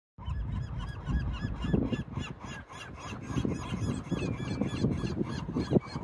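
A flock of gulls calling continuously, many short overlapping cries, over a loud low rumble.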